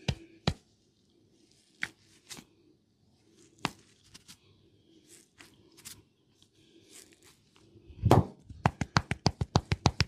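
A barber's hands at work in a head massage: scattered sharp taps and clicks, a heavy thump about eight seconds in, then a fast, even run of slaps at about five a second.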